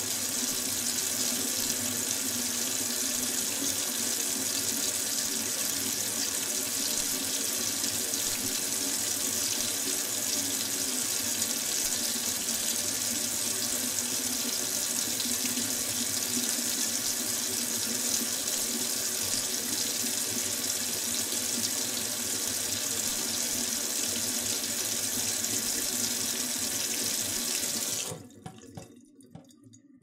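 Kitchen sink tap running steadily at full flow, water streaming into the sink, then shut off abruptly near the end, followed by a few faint clicks.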